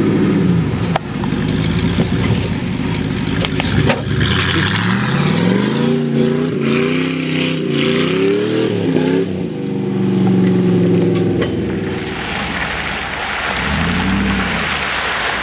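Pickup truck engines revving hard, the pitch climbing and dropping again and again as the lifted 4x4s spin through gravel and mud. Near the end a hiss of mud and water thrown by the tyres joins the engine.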